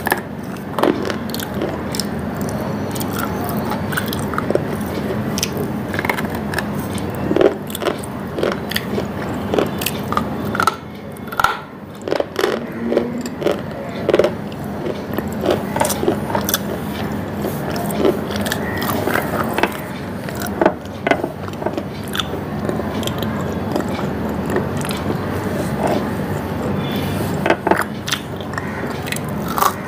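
Close-up biting and chewing of a hard, chalk-like white lump: sharp, irregular crunches and cracks, many in a row, over a steady background hiss.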